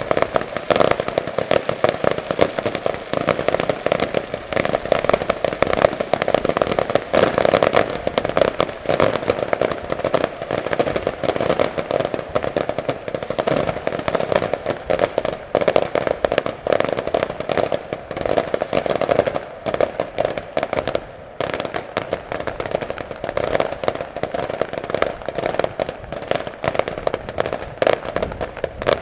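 Fireworks display in a dense barrage: many overlapping bangs and crackles from bursting aerial shells, with only a short dip about 21 seconds in.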